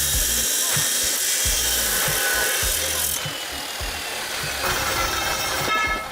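A power tool running steadily, a dense hissing noise that cuts off just after the end, over background music with a steady low beat.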